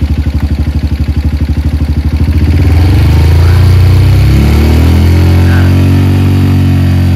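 Honda CRF's single-cylinder engine idling with an even pulse, then revved up a couple of seconds in and held at higher revs.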